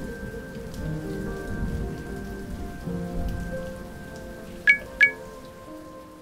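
Rain falling, with low thunder rumbles and soft held tones underneath. Near the end come two bright plinks, a third of a second apart.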